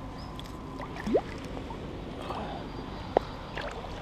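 Shallow river water running and lapping around the wader, with two short watery plops, one about a second in and one near the end, as a small hooked fish splashes at the surface and is taken by hand.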